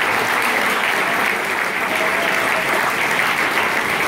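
Audience applause, a dense, steady clapping.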